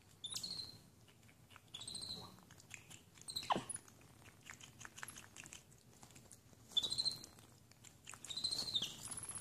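Capuchin monkeys squeaking: about four short, high chirps that rise and fall, and one longer cry that slides steeply down in pitch about three and a half seconds in, with soft clicks in between.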